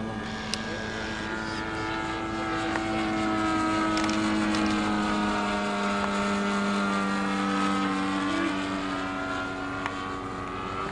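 Radio-controlled scale model P-51D Mustang flying past, its engine and propeller running steadily. The sound grows louder toward the middle as it passes close, then fades while its pitch sinks slightly as it moves away.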